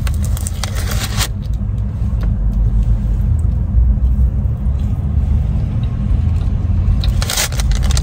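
Steady low rumble of a car idling, heard inside the cabin, with two brief rustling noises, one about a second in and one near the end.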